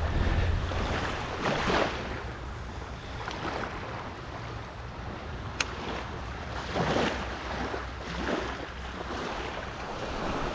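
Wind buffeting the microphone over small waves washing onto the sand, the wash swelling about a second and a half in and again around seven seconds. A single sharp click near the middle.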